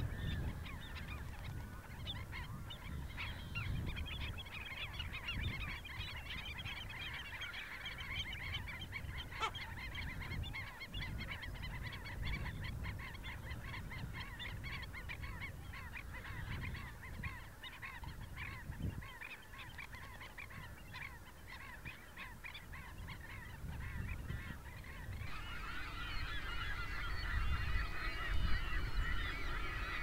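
A flock of waterbirds calling, many short calls overlapping into a steady chorus over a low rumble. A little before the end the calls get louder and denser.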